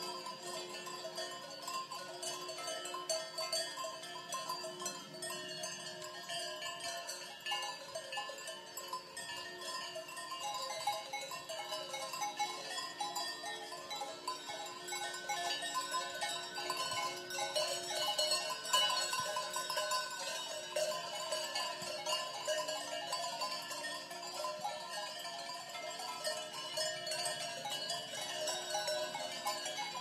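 Many cowbells on a herd of cows ringing at once, a continuous jangle of overlapping tones at different pitches.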